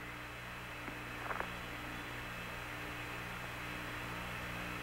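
Steady electrical hum and hiss on the open Apollo air-to-ground radio channel between transmissions, with two faint ticks about a second and a half in.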